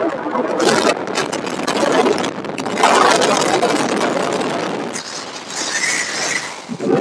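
Freefall wind rushing over a skydiver's helmet-camera microphone: a loud, uneven rush that swells and eases.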